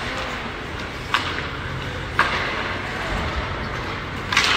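Ice hockey play in an arena: a steady hum of rink ambience with sharp clacks of sticks on the puck and ice, one about a second in, another about two seconds in, and a quick cluster near the end.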